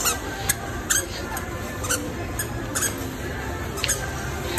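Short, sharp high squeaks at irregular intervals, roughly one or two a second, as a toddler walks pulling a small rolling plastic shopping basket across a tiled floor, over a steady background hum.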